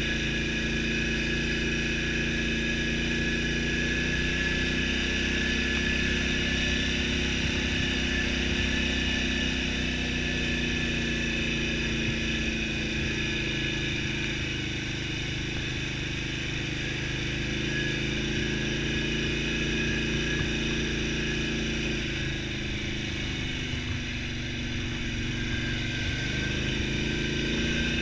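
Polaris Sportsman XP 1000 ATV's twin-cylinder engine running steadily with a constant high whine over it. Its pitch eases down slightly a little past two-thirds of the way through, then climbs again near the end.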